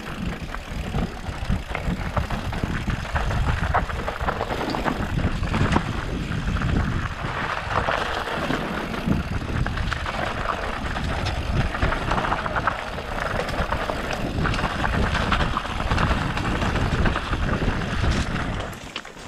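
Mountain bike riding fast over a rough dirt trail: wind buffeting the camera microphone, with the rattle and clatter of the bike and tyres over rocks and bumps. It quietens sharply near the end.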